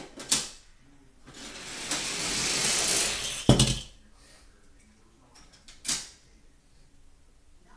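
Die-cast toy car rolling down a plastic Hot Wheels track with a rushing whirr that grows louder, then a sharp clack as it jumps and lands on the table about three and a half seconds in. A short click comes at the start and another knock near six seconds.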